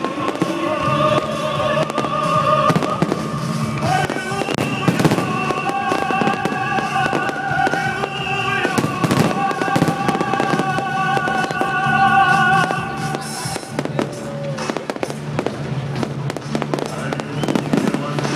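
Fireworks display: aerial shells bursting with many sharp bangs and crackling, over music with long held notes.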